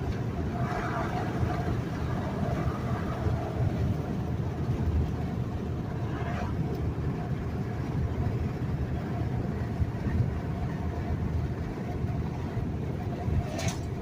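Steady road and engine rumble heard from inside the cabin of a moving truck, with one brief sharp click near the end.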